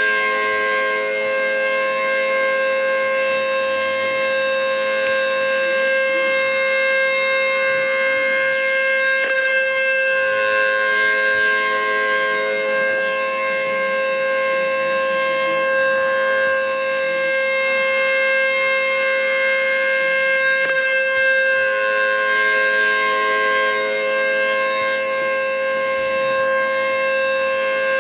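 Outdoor tornado warning siren holding a steady tone, its sound growing brighter and then fading back about every eleven seconds.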